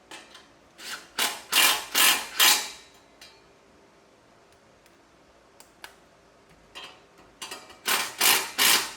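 Impact wrench run in short bursts to tighten the exhaust front pipe's flange bolts: a quick string of loud rattling bursts about a second in, a pause, then another string near the end.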